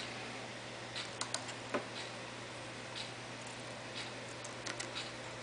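Faint scattered small clicks and ticks of hand soldering, as a soldering iron heats the ground tab of a right-angle plug and solder wire is fed in, over a steady low hum.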